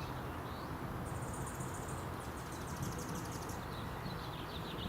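Wind buffeting the microphone in a steady low rumble, with a high insect-like trill in the first half and bird chirps near the end.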